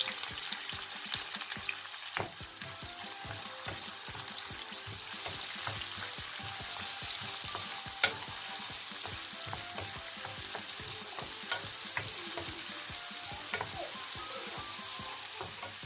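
Chopped onion frying in hot oil with cumin, fennel and mustard seeds: a steady sizzle that grows a little stronger about halfway, with the ingredients being stirred in the pan and occasional sharp clicks.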